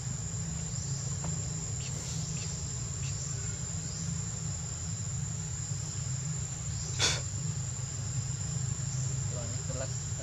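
Steady high-pitched drone of insects such as crickets or cicadas, over a steady low rumble, with a single sharp click about seven seconds in.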